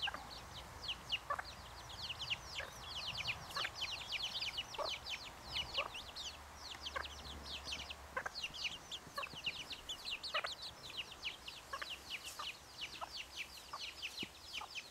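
German Buschhuhn chicks peeping: a rapid, nearly continuous stream of short, high, falling peeps. Now and then a short, low cluck from the bantam hen sounds beneath them.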